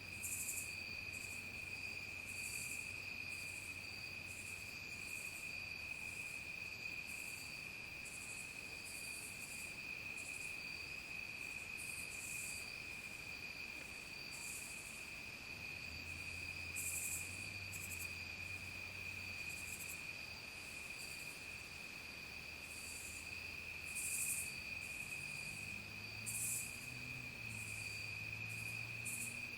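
Evening chorus of crickets and other insects: a steady high trill, a fainter higher one above it, and irregular short buzzy chirps higher still. A faint low hum comes and goes underneath.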